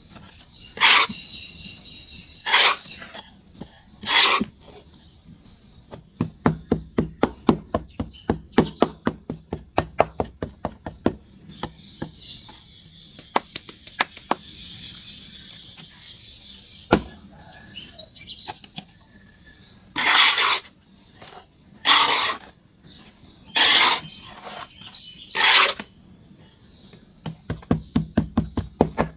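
Charcoal being worked by hand: several short, loud scraping strokes, long runs of rapid ticking and tapping in between, then four more loud strokes about two seconds apart.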